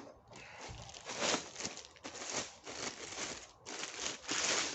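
Plastic packaging crinkling and rustling in a series of irregular handling noises, loudest about a second in and near the end.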